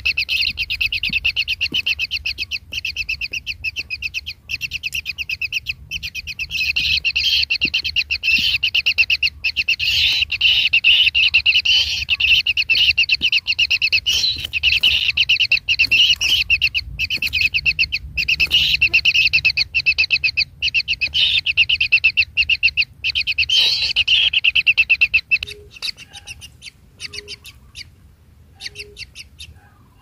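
Kingfisher nestlings in a burrow nest calling nonstop, a fast train of high chirps typical of chicks begging for food. The calls thin out to a few scattered chirps near the end.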